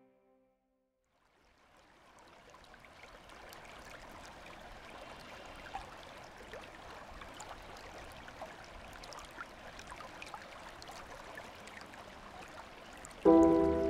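Flowing stream water fading in after a moment of silence: a gentle, steady rush with small scattered drips and splashes. Near the end a loud music chord comes in suddenly.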